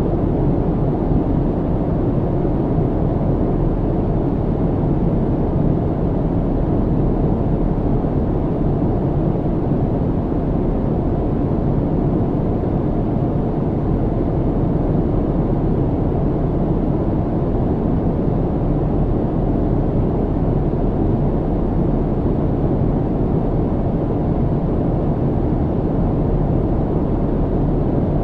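Airliner cabin noise in flight: a constant deep rumble and rush of air, unchanging throughout.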